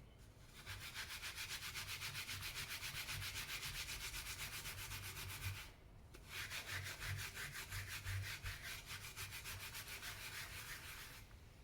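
Quick back-and-forth scrubbing of a clothes iron's soleplate coated in baking soda paste, in two long bouts with a short break about halfway.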